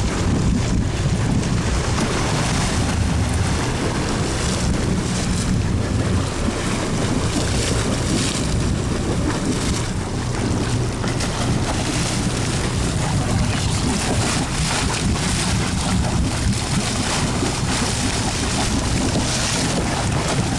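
Fishing boat's engine running steadily at sea, with wind buffeting the microphone and water rushing past the hull.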